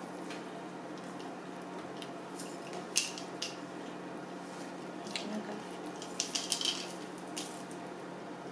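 Kitchen knife slicing down through a peeled pineapple and knocking on a plastic cutting board: a scatter of short crisp cuts and clicks, busiest in the second half, over a steady low hum.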